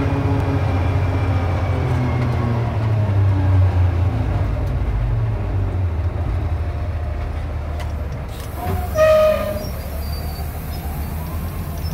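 Grapple yarder's diesel engine running, heard from inside the operator's cab, its pitch easing down a few seconds in. About nine seconds in, a short horn toot sounds over it.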